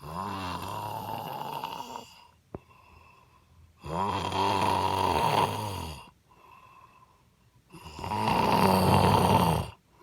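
A woman snoring loudly: three long, rattling snores of about two seconds each, roughly four seconds apart, with quiet breaths between them.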